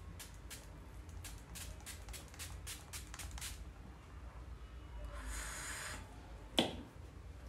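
Makeup setting spray (Swiss Beauty makeup fixer) misted once from its pump bottle: one hissing burst about five seconds in, lasting about a second. Before it come light clicks, about three a second, for the first three seconds or so, and a single sharp click follows soon after the spray.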